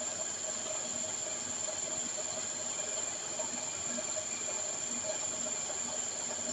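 Steady hiss of slurry water running out of a pipe into a mesh filter bag in a gold-processing plant. Under it are a constant high whine and a faint, uneven pulsing hum of machinery.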